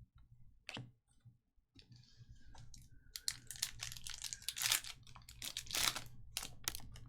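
A plastic trading-card pack wrapper being torn open and crinkled by hand, in a run of crackling rustles that gets busiest in the second half.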